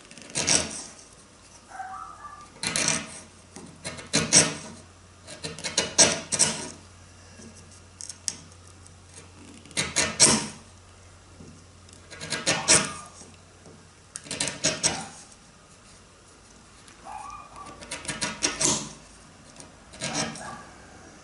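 Wood chisel pushed by hand through the wood of a round mast, paring out a drilled sheave slot in a series of short scraping cuts every second or two.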